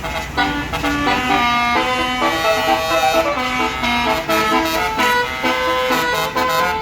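Basuri telolet multi-tone air horn on a bus playing a fast melody of short, stepped notes.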